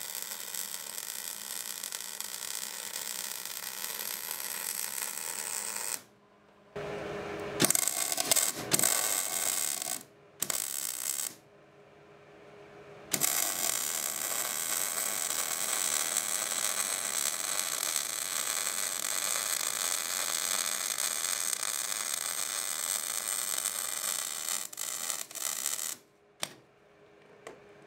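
MIG welder arc crackling steadily as a bead is laid on steel tube. The arc breaks off several times between about six and thirteen seconds in, then runs unbroken until it stops near the end.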